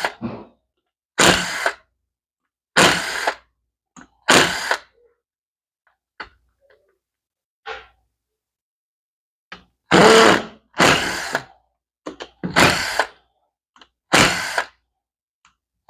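Power drill-driver running in short bursts as it backs screws out of a washing machine transmission housing. There are about eight bursts of roughly half a second each, with a pause of several seconds in the middle that holds only small clicks.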